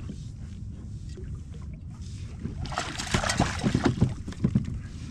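Splashing water with sharp knocks and clatter, starting about two and a half seconds in and lasting a couple of seconds, as a hooked rockfish thrashes at the surface beside a kayak, over a steady low rumble.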